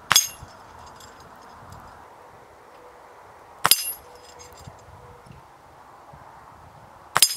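Three sharp metallic clangs, each ringing briefly: .30 calibre pellets striking a steel spinner target. The first comes right at the start, the second about three and a half seconds in and the third near the end.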